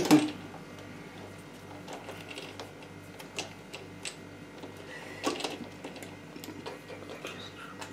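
Small metallic clicks and taps as a steel hex screwdriver bit is handled and pushed into the hex hole of a nut ring held in a lathe chuck, the bit going in a little tight. Under them runs a low hum that pulses about three times a second.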